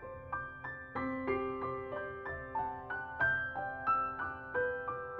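Background piano music: a melody of single struck notes, about three a second, over held lower notes.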